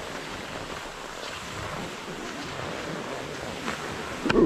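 Steady rushing noise of wind on the microphone and cross-country skis gliding over groomed snow, with a sharp knock near the end.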